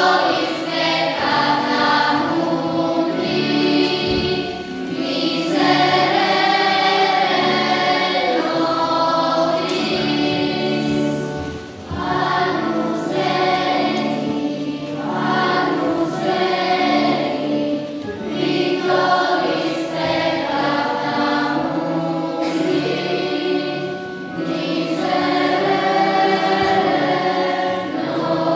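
Children's choir singing a church hymn in phrases a few seconds long, with keyboard accompaniment.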